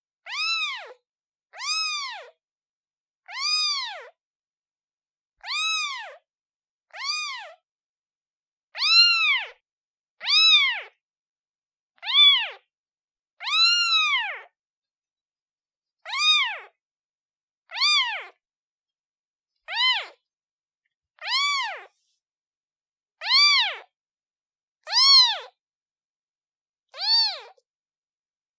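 Newborn kitten meowing over and over, a high-pitched call about every second and a half, each one rising and then falling in pitch: a kitten calling for its mother.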